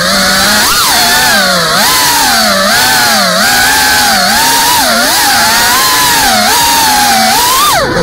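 FPV freestyle quadcopter's brushless motors whining loudly, the pitch rising and falling constantly with throttle as the drone manoeuvres, with a sudden drop and climb in pitch near the end.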